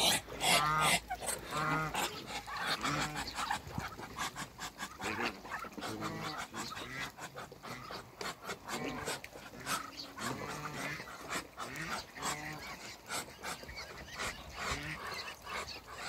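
Muscovy ducks calling: strings of short, breathy pitched calls, several a second, that thin out in the middle and come back towards the end, with scattered small clicks between them.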